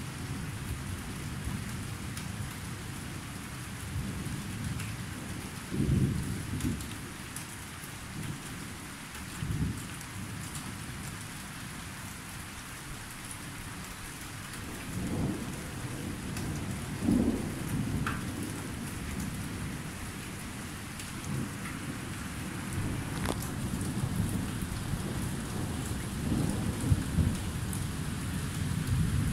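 Steady rain falling, with scattered close drop ticks, under repeated low rolls of thunder that swell and fade several times, the loudest about six seconds in and again near the end.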